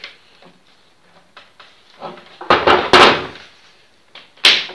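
CMT7E plunge router being handled and set down on a workbench, not running: quiet at first, then two loud knocks about two and a half and three seconds in, and another near the end.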